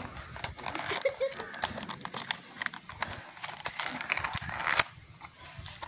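Earphone packaging being handled and unpacked: irregular rustling and crinkling with many small clicks, and one sharper, louder click near the end before it goes quieter.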